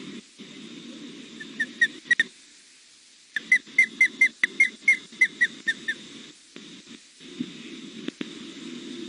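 Juvenile osprey calling: a few short, high, whistled chirps, then after a pause a quicker run of about a dozen, the repeated food-begging call of a hungry young osprey.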